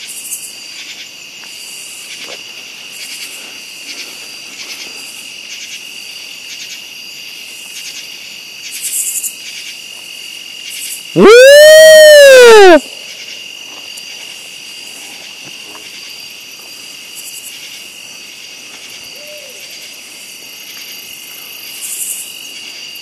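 A steady night insect chorus of crickets and other insects. About eleven seconds in, a single very loud drawn-out whooping call, about a second and a half long, rises and then falls in pitch.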